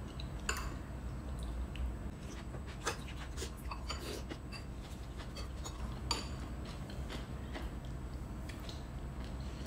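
Spoons clicking against ceramic bowls now and then, with quiet noodle slurping and chewing, over a low steady hum.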